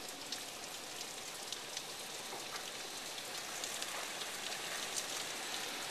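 Steady heavy hurricane rain falling, with a few faint drops ticking now and then.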